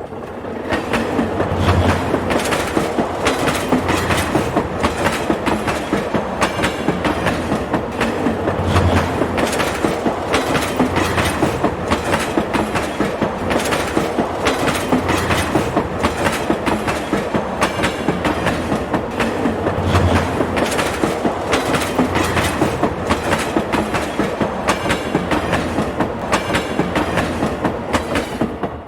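Train passing on the track, its wheels clattering over the rail joints in a steady, rhythmic clickety-clack, dying away at the end.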